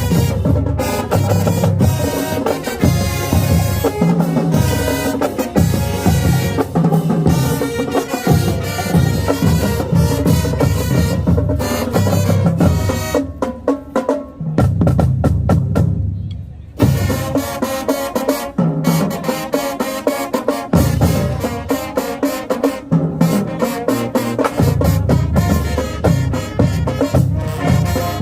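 Marching band playing: pitched wind parts over a drumline of snare and bass drums. About two-thirds of the way through the sound thins and drops for a few seconds, then the full band comes back in suddenly.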